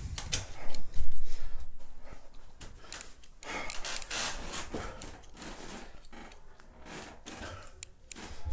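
Handling noise: the phone's microphone rubbing and scraping as it is moved about, in uneven bursts, loudest about a second in and again around four seconds in.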